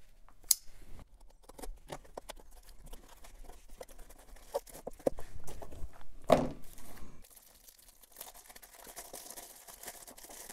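Cardboard shipping box being opened: a sharp click about half a second in, then packing tape slit with a folding knife and flaps pulled open, with scattered scrapes and rustles and a thump about six seconds in. Plastic wrap crinkles faintly near the end.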